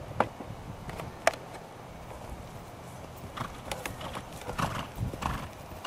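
Hoofbeats of a ridden paint horse moving over a dirt-and-grass arena: a few sharp strikes early on, then a quicker, louder run of strides from about three seconds in as the horse comes closer.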